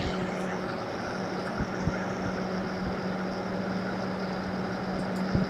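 Phanteks SP140 140 mm computer case fan running at full speed (100%): a steady rush of air with a steady low hum and a faint high whine.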